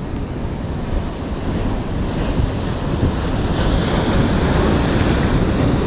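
Sea waves breaking and washing over shoreline rocks, with wind rumbling on the microphone. The surf grows louder about halfway through as a wave crashes against the rocks.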